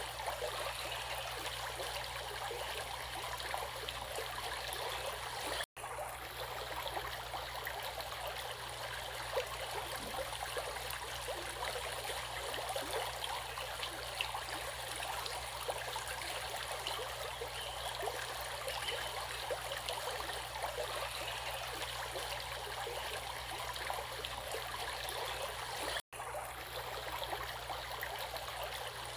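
Running water flowing and splashing steadily, as a stream does, broken twice by a split-second dropout, about 6 seconds in and again near the end.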